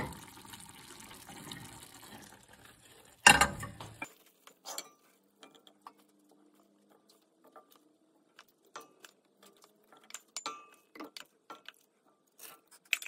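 Soft steady hiss of a simmering pot of vegetables, cut off by one loud knock about three seconds in. Then scattered light clicks and taps of a wooden spoon scooping peas, carrots and potato onto artichoke bottoms in a stainless steel pot.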